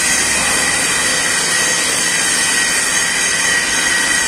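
Submerged arc welding tractor running a weld along a steel plate under a bed of flux: a loud, steady hiss with a constant high whine.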